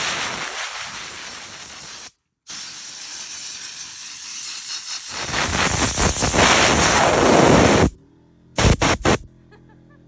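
Compressed-air blow gun blasting sawdust off a person's clothes and skin, a loud, steady hiss of air. It breaks off for a moment about two seconds in, runs on until near the end, then gives a few short blasts.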